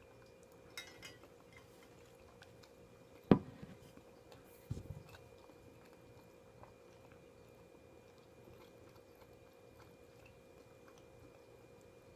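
Items handled at a meal table: light clicks about a second in, then one sharp knock a little over three seconds in, the loudest sound, and a duller thump about a second and a half later, over a steady faint hum.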